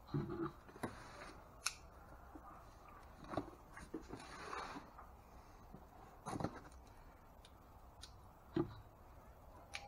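Cardboard shipping box being handled and opened on a wooden workbench: scattered knocks and clicks, with a stretch of scraping about halfway through.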